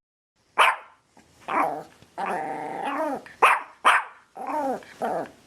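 A dog vocalizing in a mix of short sharp barks and longer rising-and-falling growly grumbles.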